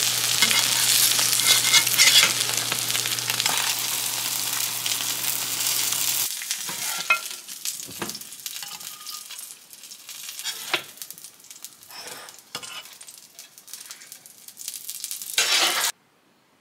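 Tofu cubes and eggplant sizzling in hot oil in a frying pan, a dense steady hiss with a low hum underneath. About six seconds in the sizzle cuts off and a few light clicks and knocks of serving utensils and a bowl follow, with a brief louder burst of noise near the end.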